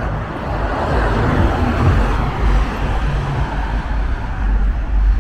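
Road traffic noise, a vehicle passing on the street with a steady, noisy rumble that swells a second or two in.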